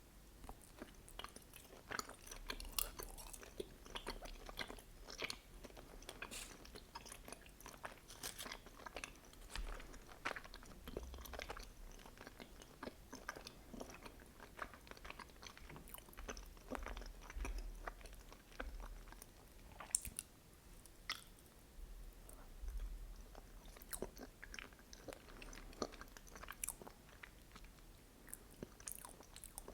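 Close-miked chewing of soft mochi with red bean paste filling: irregular wet, sticky mouth clicks and smacks.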